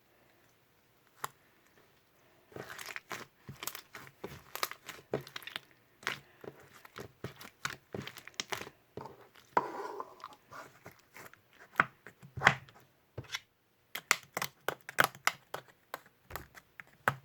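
Pompom slime being squished and stretched by hand, giving a dense run of crackling, popping clicks.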